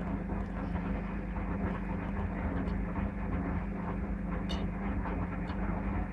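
Servis Gem M310 washing machine running steadily early in its Cottons 95 prewash, with a constant low hum and a faint tick about four and a half seconds in.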